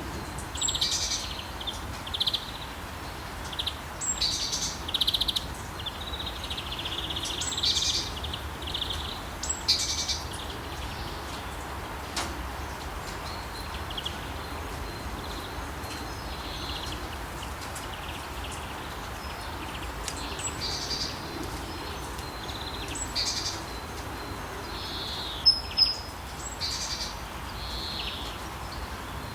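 Songbirds chirping and singing in short repeated phrases over a steady hiss of rain, with a low rumble underneath. The calls are busiest early on, and two sharper, louder chirps come near the end.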